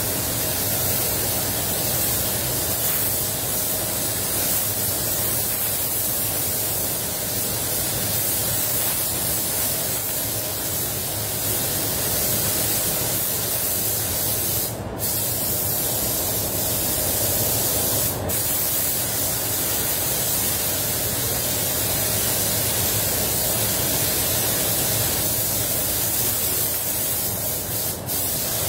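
HVLP paint spray gun hissing steadily as fast-dry clear coat is laid on a bumper at low pressure, about 1.7 bar with the gun fully open. The hiss breaks off briefly a few times, about halfway through and near the end.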